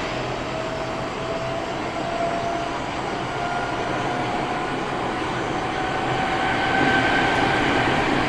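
Eidan 8000 series subway car, armature-chopper controlled, running with a steady whine that rises slowly in pitch. This is the so-called 'jet sound', an abnormal noise peculiar to this car.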